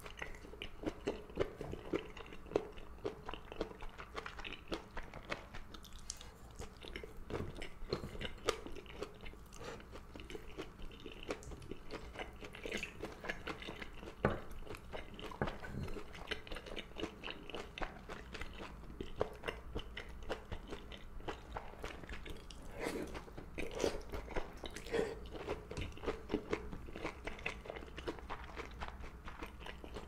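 Close-miked chewing of soft seaweed and gondre greens, with a dense run of small wet clicks and squelches from the mouth.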